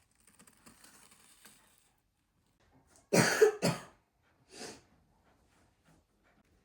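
A person coughing: two sharp coughs in quick succession a little past three seconds in, then a weaker third cough about a second later.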